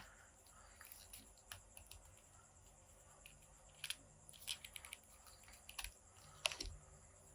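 Faint, scattered clicks and taps of small plastic action figures and accessories being handled and posed.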